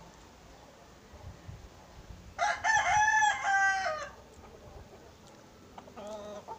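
Rooster crowing: one loud crow of about a second and a half, followed near the end by a shorter, fainter call.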